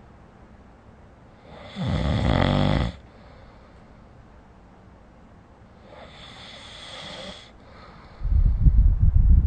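A person snoring in sleep. There is a one-second snore about two seconds in and a fainter breath out around six seconds, then a louder, rougher snore begins near the end.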